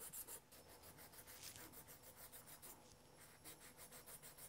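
Spot levelling file rubbed back and forth over a mother-of-pearl disc to flatten it: faint, quick rasping strokes, strongest in the first half second and then lighter and less regular.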